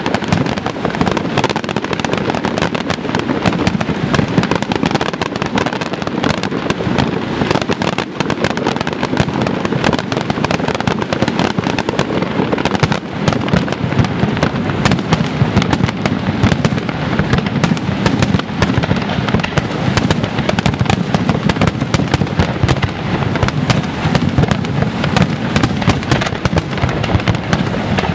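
Aerial firework shells bursting in a dense, continuous barrage: rapid overlapping bangs and reports with no pause.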